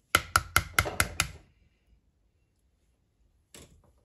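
Wooden pestle pounding in a clay mortar (khrok) to bruise tomatoes in lime juice, fish sauce and tamarind water, making som tam dressing. About six quick, wet knocks come in the first second and a half, then stop, with one faint knock near the end.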